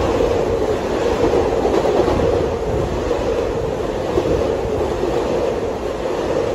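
Long Island Rail Road electric multiple-unit train running past along the platform: a steady rumble of wheels on rails.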